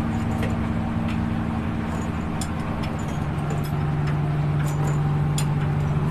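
Tugboat's engine running steadily with a low, even hum, with scattered light clicks and taps over it.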